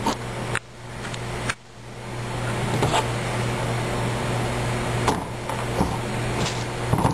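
Steady ventilation hum of room tone, with a few faint clicks and rustles as the rubber hoof boot and its cable are handled.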